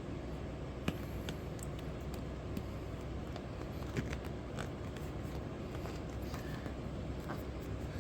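A few light clicks and scrapes of windshield trim being worked onto its rubber seal, the sharpest click about a second in and another about four seconds in, over a steady hum of room noise.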